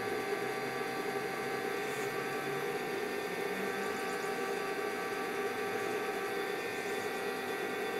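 Steady machine-shop hum: running machinery gives several steady tones over an even hiss, with no distinct knocks or strikes.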